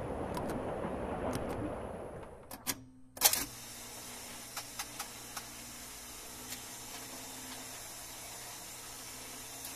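Jukebox selector keys pressed and its mechanism clicking into action: a rushing noise fades out about two seconds in, then a few clicks and one loud clack, followed by a faint steady hum with scattered light ticks as the machine runs.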